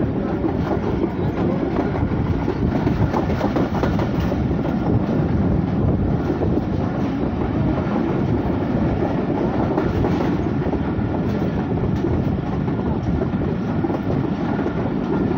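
Pakistan Railways Hazira Express passenger coach running along the track at speed, heard from its open door: a steady rumble of wheels on the rails with a few faint clicks.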